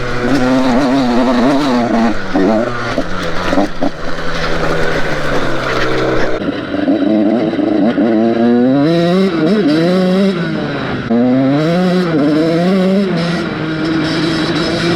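Two-stroke engine of a KTM SX 85 motocross bike ridden hard, revving up and falling back over and over, the pitch climbing and dropping about once a second in the second half. It pulls cleanly to high revs, the bogging at high revs cured by replacing a burnt spark plug.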